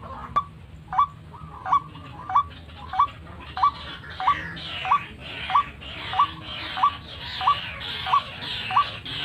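White-breasted waterhen (ruak-ruak) calling: a short rising note repeated evenly about one and a half times a second, over a harsher hiss of calling that grows stronger about halfway through.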